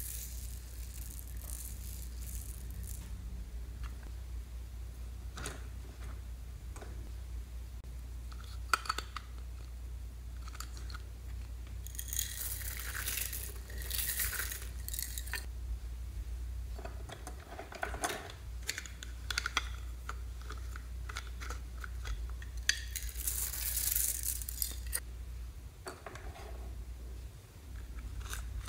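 Small foam beads, sequins and glitter poured from plastic containers onto slime in a glass tray, crackling and pattering in two longer pours, with scattered clicks of the plastic containers. A steady low hum runs underneath.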